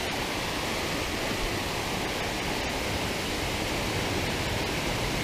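Water rushing steadily over a small concrete spillway and churning into the pool below.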